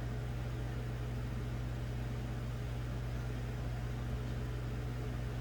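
A steady low hum from a running machine, unchanging throughout.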